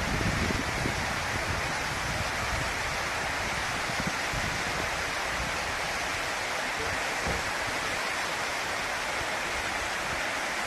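Waterfall: a steady rush of falling water, unbroken throughout.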